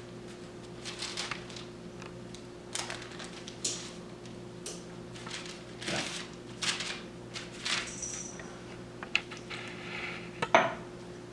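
Irregular soft clicks, taps and rustles of hands at work: gloved hands shaping cookie dough balls and pressing them flat with the bottom of a glass on a sheet pan. A steady low hum runs underneath.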